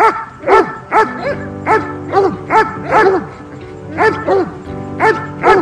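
A dog barking over and over, about two high barks a second, each bark rising and falling in pitch.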